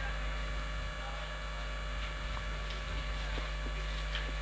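Steady low electrical mains hum, with a few faint ticks.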